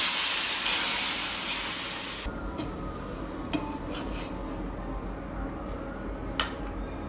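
Rava dosa batter sizzling on a hot tawa as it is spread, a loud hiss that cuts off suddenly after about two seconds. Then a quieter sizzle with a few sharp taps and scrapes of a wooden spatula on the pan, the loudest tap near the end.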